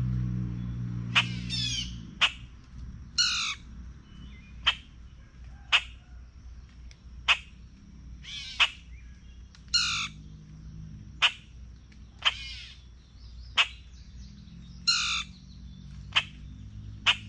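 A bird calling over and over, with sharp, clipped calls about once a second and a longer, harsher call every few seconds. A faint steady high tone runs underneath.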